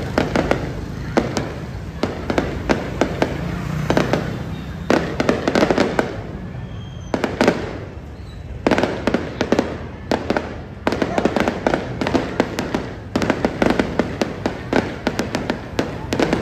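Fireworks display: aerial shells bursting overhead in a dense run of rapid sharp pops and bangs. The popping eases for a moment about seven seconds in, then picks up again.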